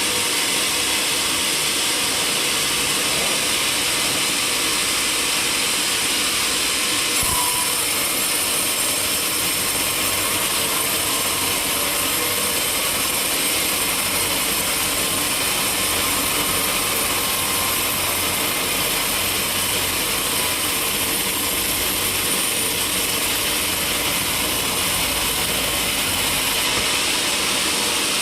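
Sawmill saw and machinery running steadily with a loud, even, hissing mechanical noise, which turns brighter and hissier about seven seconds in.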